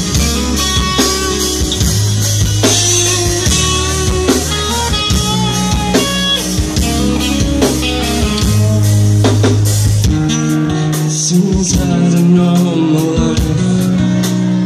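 Live rock band playing an instrumental passage: electric guitar over bass guitar and a drum kit, with steady, regular drum hits. About ten seconds in the deep bass drops away, leaving guitar and drums.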